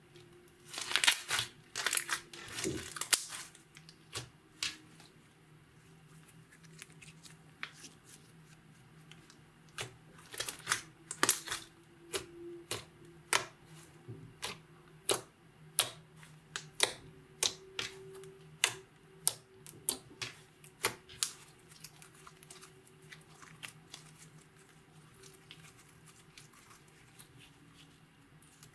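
Clear slime with makeup mixed in being squished and pressed by hand, making sharp clicking pops. The clicks come thick and fast in the first few seconds, then as a run of separate pops from about ten seconds to twenty, with quiet stretches between.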